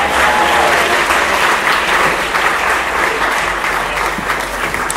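Audience applauding: sustained clapping from a large crowd, tapering off near the end.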